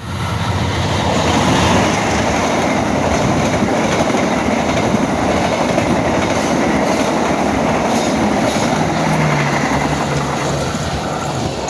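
Diesel-hauled passenger train passing close by at speed: the locomotive goes by first, then the carriages' wheels rolling and clattering over the rails in a loud, steady rush. A low drone sounds for a couple of seconds near the end.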